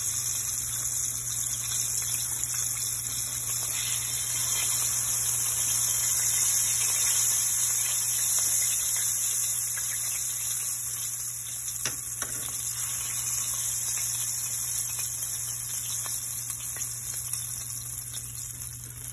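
Chicken pieces frying in hot oil in a skillet: a steady sizzle, with a faint knock about twelve seconds in.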